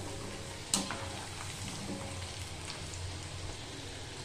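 Cornflour-coated potato fingers deep-frying in hot oil in a steel kadai: a steady fizzing sizzle. One light clink of the steel skimmer against the pan about three quarters of a second in.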